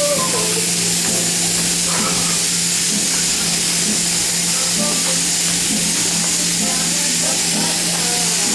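Sheep-shearing plant running steadily as a sheep is shorn: a constant hum with a continuous hiss from the handpiece cutting through the fleece.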